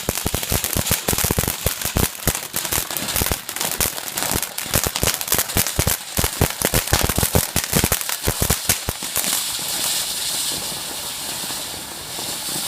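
A firework going off with a fast, dense run of crackling bangs for about nine seconds, then a steady hiss.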